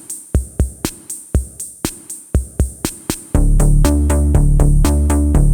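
Electronic dance music: a drum-machine beat of kicks and hi-hats alone for about three seconds, then a heavy bass and synth chords come in with it.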